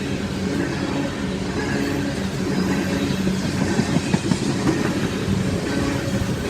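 Loaded coal train rolling by: a steady rumble with wheels clacking over the rail joints, a few sharper clacks about four seconds in.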